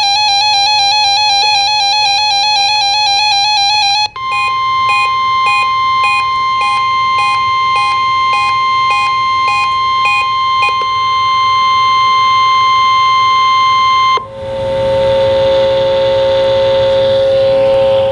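Emergency Alert System test tones. A rapidly warbling tone gives way, about four seconds in, to the steady NOAA Weather Radio warning alarm tone, with beeps pulsing over it a little more than once a second. The beeps stop partway through, and later the tone changes to a lower steady tone over hiss.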